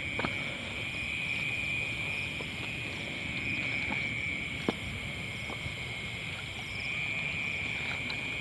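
Night chorus of frogs and insects, a steady high-pitched trill, with one short sharp click about halfway through.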